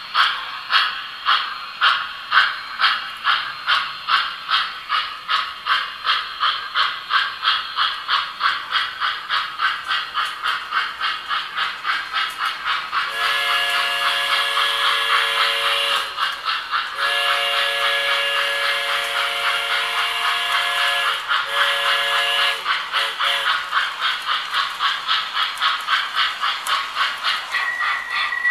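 Electronic sound system of an MTH tinplate toy steam locomotive, chuffing rhythmically at about two to three chuffs a second. About halfway through, its steam whistle blows three blasts, two long and one short.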